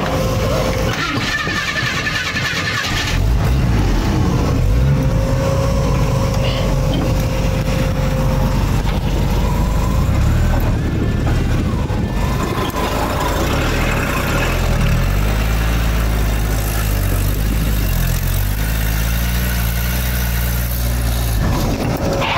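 Two-wheel-drive Jeep DJ Postal Jeep's engine running under load as it crawls over slickrock, the revs shifting and stepping up and down, with a thin steady whine above the engine note.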